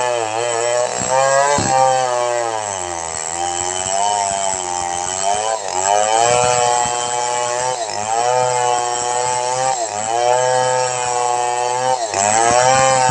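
Two-stroke chainsaw ripping lengthwise through a log, its engine pitch repeatedly sagging under load as the bar bites into the wood and recovering as the cut eases, with one longer bog a few seconds in.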